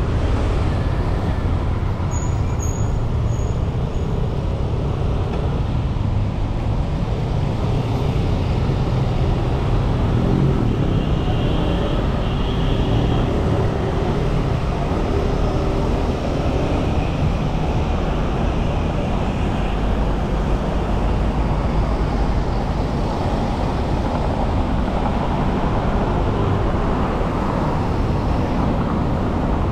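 Steady city road traffic: the continuous rumble of cars and other motor vehicles on a busy road.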